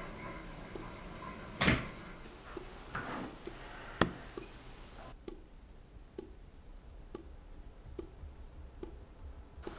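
Steady ticking, about two ticks a second, with a louder brief rush of noise near the start and a single sharp click about 4 seconds in.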